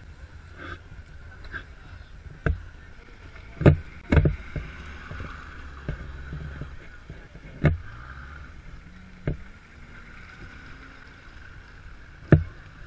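Vehicle engines running with a low hum that rises in pitch twice, as in revving, while about six sharp knocks and thumps cut through it, the loudest about four seconds in and near the end.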